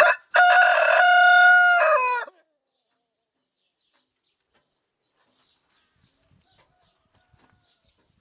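Rooster crowing once: a brief opening note, then a long held cock-a-doodle-doo that drops in pitch at its end, about two seconds in all.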